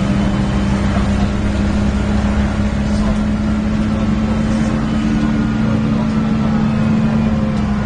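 Alexander Dennis Enviro 300 bus on a MAN chassis: its MAN diesel engine and cooling fan running with a steady, unchanging drone. The uploader describes the bus as poorly sounding.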